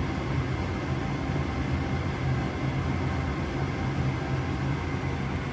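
Goodman gas furnace running steadily with its burners lit, a constant rushing noise over a low hum; the flame now holds because the dirty flame sensor has been cleaned.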